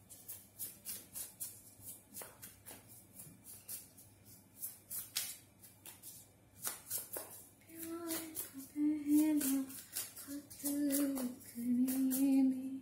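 A tarot card deck being shuffled by hand: a quick run of card flicks and taps. From about two-thirds of the way in, a woman hums a tune in held notes over the shuffling.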